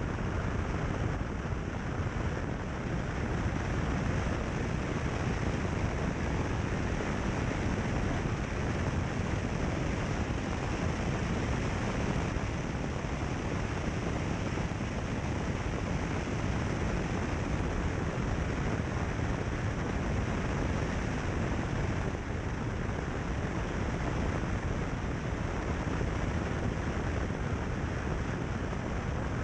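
Steady driving noise of a car on a gravel road: tyre rumble on the gravel and wind buffeting the microphone, with no distinct engine note standing out.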